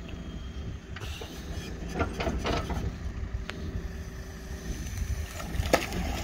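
JCB backhoe loader's diesel engine running steadily while it digs, with a few sharp clanks from the working arm and bucket.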